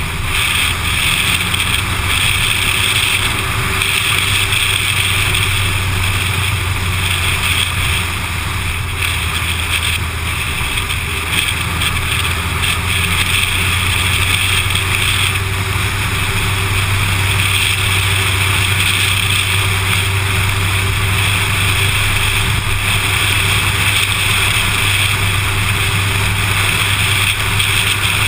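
A car driving steadily along an open road: a constant rush of wind and tyre noise over a low engine drone.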